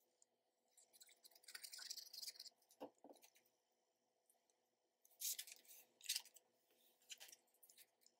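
Faint rustling and sliding of paper strips being handled, glued and pressed onto a cardstock journal page, with a soft knock about three seconds in.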